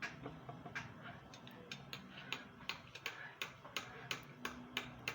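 Regular sharp ticking, about three ticks a second, over a faint low hum.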